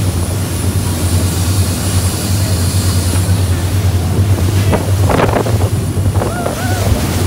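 Game-fishing boat's engines running at speed with a steady low drone, the wake water rushing and wind buffeting the microphone. Spray splashes up over the stern about five seconds in.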